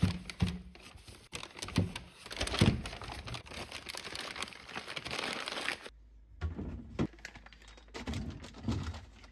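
Plastic packaging crinkling and rustling, with light knocks and taps, as food is handled and wrapped for storage. The sounds stop briefly about six seconds in, then pick up again.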